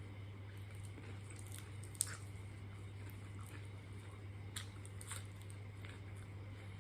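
A person chewing food, with a few short crunchy clicks of bites, the sharpest about two seconds in, over a steady low hum.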